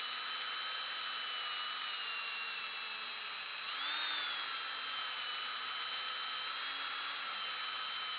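Wire wheel spinning on a power tool, scrubbing old blue Loctite off the threads of a steering-wheel bolt. A steady high whine whose pitch briefly rises about four seconds in, then settles back.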